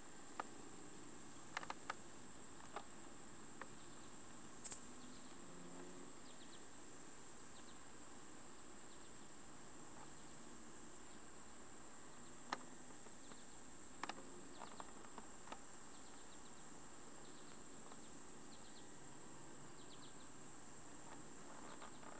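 Insects trilling steadily at a high pitch, with a dozen or so short sharp clicks scattered through.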